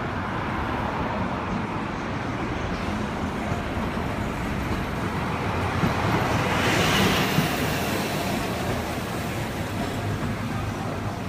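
Street traffic: a steady rush of road vehicles, swelling for a couple of seconds as a city bus passes close by about six seconds in, then easing back.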